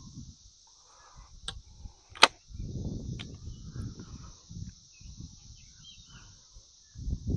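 Faint steady high-pitched drone of insects that the shooters call locusts, with a few sharp clicks, the loudest about two seconds in, and rustling handling noise as a single-shot shotgun is readied and shouldered.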